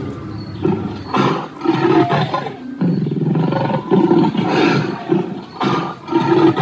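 Recorded dinosaur roars from an animatronic dinosaur display: a run of rough roars and growls, one after another with short gaps.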